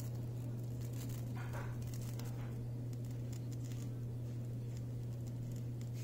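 A steady low hum, with scattered faint taps and rustles over it.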